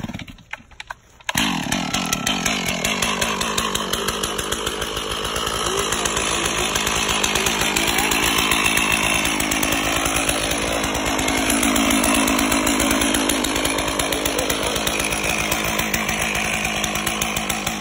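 Chainsaw running under full load, ripping lengthwise down a log freehand along a marked line. The saw starts abruptly about a second in and then holds a steady cutting note, rising and falling slightly as it bites.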